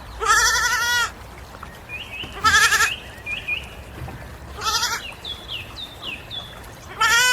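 Goat bleating four times, each bleat a short quavering call, the first the longest.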